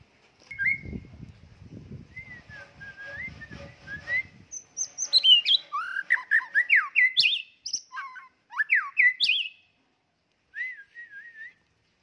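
White-rumped shama singing: soft whistled notes at first, then a loud, fast run of varied whistles sweeping up and down, a pause, and a short soft warble near the end. A low rumbling noise sits under the first few seconds.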